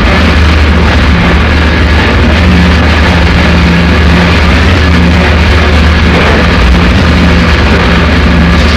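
Harsh noise music: a loud, unbroken wall of distorted noise over a steady low hum, with a buzzing tone a little higher that cuts in and out irregularly.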